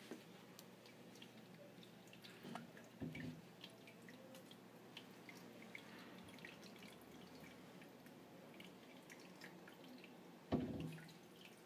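Faint dripping and trickling of aquarium water, a scatter of small irregular drips. A few dull knocks break in, two about three seconds in and a louder one near the end.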